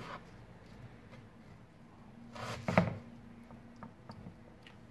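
A few soft knife cuts and knocks on a wooden cutting board as a red onion is sliced into rings, with one louder knock a little past halfway and faint small clicks after it.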